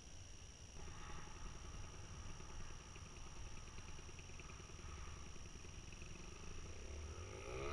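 Faint paramotor engine running at a distance, coming up about a second in while the pilot inflates the wing to launch. Music begins right at the very end.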